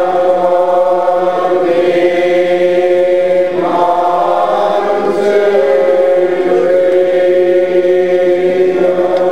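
A crowd of several hundred Old Order Mennonites singing together without instruments, holding long, drawn-out notes and moving to a new pitch about three and a half seconds in.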